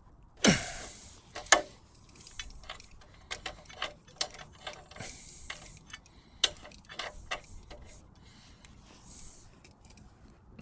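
A wrench working the torque-arm clamp bolts on an electric bike's rear axle: irregular metal clicks and clinks, with two louder knocks about half a second and a second and a half in.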